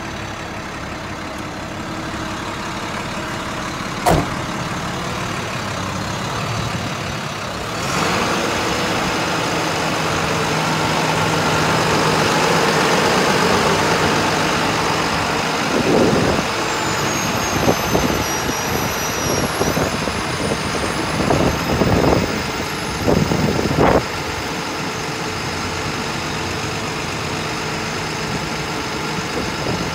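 Diesel engine of an International 4300 bucket truck idling steadily. There is a sharp click about four seconds in and a handful of short, loud knocks around the middle.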